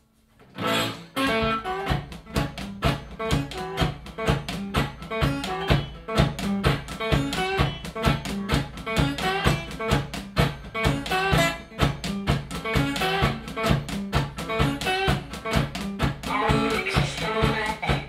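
Blues guitar played in a driving, steady rhythm, with sharp percussive hits about four times a second under the notes.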